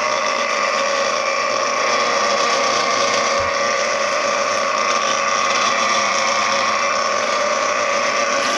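An electric motor running steadily at constant speed: a continuous hum with a whining tone over a hiss. There is a brief low thump about three and a half seconds in.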